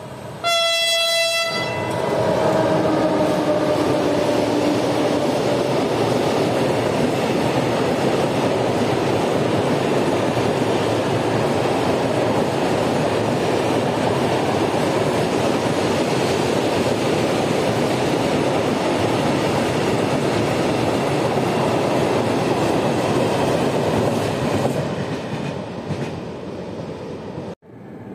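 A train horn sounds one blast of about a second, then a freight train passes close by with a loud, steady rumble and rattle of its wagons. The noise fades near the end and cuts off abruptly.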